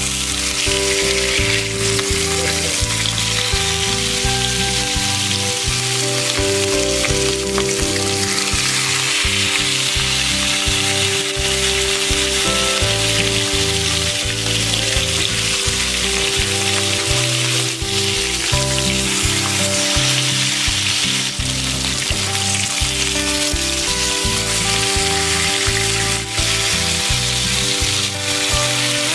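Rohu fish steaks sizzling and crackling in hot oil in a frying pan. The hiss starts as the first piece goes in and stays dense and steady, with background music underneath.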